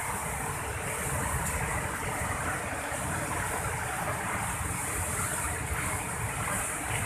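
Steady rush of fast-flowing water from a river or waterfall, a continuous hiss over a low rumble with no breaks.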